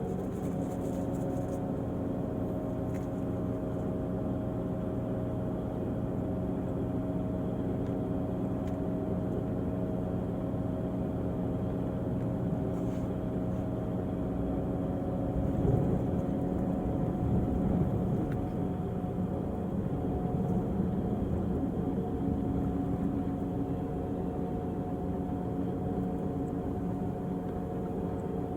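Diesel engine of a Volvo-chassis coach running steadily, with a brief rise in level just past halfway.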